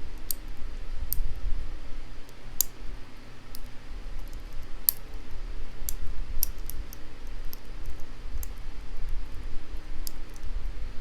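Lock pick working the pins in the keyway of a Master Lock 220 padlock under tension: light metallic clicks at irregular intervals, over a low rumble.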